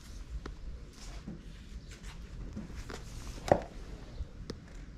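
Shoes being picked up and handled: a few short knocks and some rustling, with the sharpest knock about three and a half seconds in.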